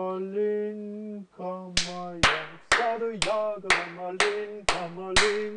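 Eight hand claps at a steady pace of about two a second, starting about two seconds in, over music playing from a computer. The claps set the tempo of the music playback through a clap-recognition interface.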